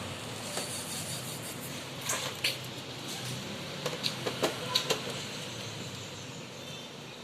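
A few light clicks and taps of parts being handled while an all-in-one PC is put back together: two about two seconds in, then a quick cluster between four and five seconds in, over a steady low background hum.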